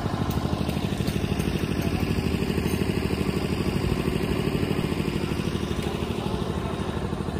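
An engine idling steadily close by, with a fast, even pulse.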